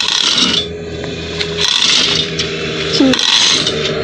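A large vehicle's diesel engine idling steadily, with three short bursts of hissing noise over it, about a second and a half apart.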